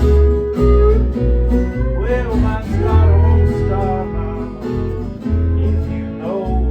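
Blues in E played on guitar: lead notes bent up and down over a steady, repeating low bass line.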